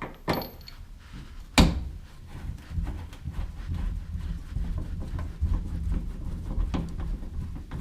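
Hand tools and hardware handled while working under a car: a couple of light clicks, a sharp knock about one and a half seconds in, then low shuffling and scraping.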